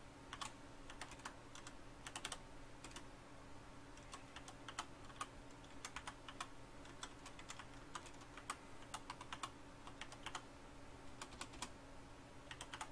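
Computer keyboard typing a short line of text: quiet, irregular keystrokes in quick runs with brief pauses between words.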